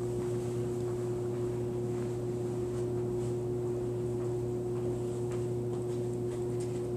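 Room tone: a steady low hum with a faint high whine, broken only by a few faint soft taps.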